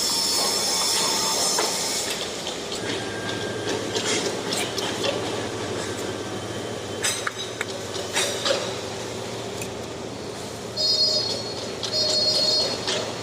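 Construction site noise: a steady mechanical hiss that eases after about two seconds, scattered metallic clinks and knocks, and a high squealing scrape twice near the end.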